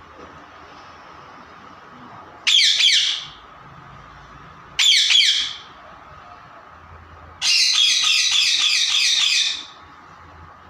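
Pet parrot squawking: two short harsh calls that sweep downward, then a longer run of rapid repeated screeching notes lasting about two seconds.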